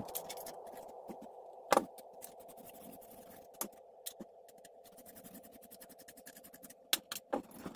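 Handling noise from a guitar pickguard assembly and small tools on a workbench: scattered light clicks and knocks, the loudest about two seconds in, with a run of small ticks near the end as a screwdriver works on the pickguard.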